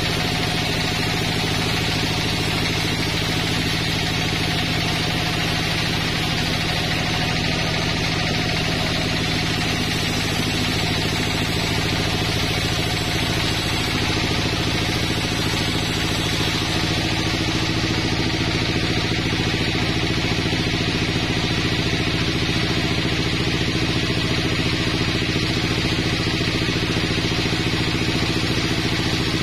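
Sawmill saw running steadily while cutting a slab off a log fed through on the carriage: a constant machine hum with several steady tones under the noise of the cut.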